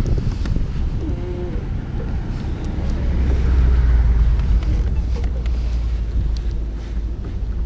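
Wind buffeting the microphone outdoors on open water: a low rumble that swells about three seconds in and eases after five, with a few faint clicks.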